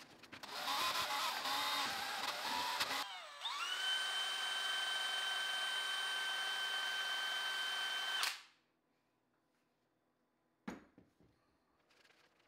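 Power drill with a paddle mixer stirring a bucket of concrete underlayment: it runs unevenly at first, then spins up to a steady high whine about three seconds in and stops sharply about five seconds later.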